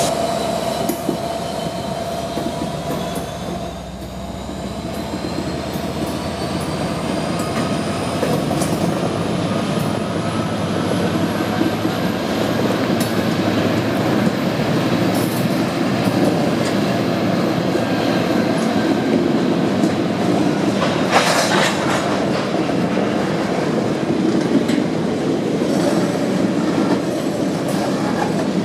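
Freight train hopper cars rolling slowly past, wheels clacking over the rail joints with drawn-out squealing whines from the wheels that slowly rise in pitch, and a brief louder burst about three-quarters of the way through.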